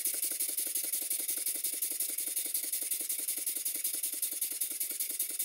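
Rebuilt Clarkson single-cylinder vertical steam engine running steadily, with a quick, even beat of strokes.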